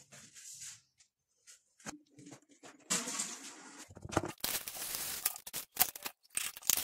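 Plastic spice containers, lids and packets being handled on a kitchen countertop: a string of short clicks and clatters with rustling and crinkling of packaging, sparse at first and busier from about three seconds in.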